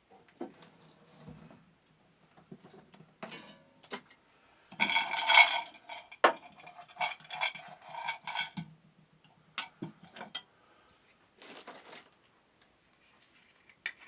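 Metal hand tools clattering and clinking as they are rummaged through for a Phillips screwdriver, with the loudest ringing clatter about five seconds in, then scattered clicks and knocks.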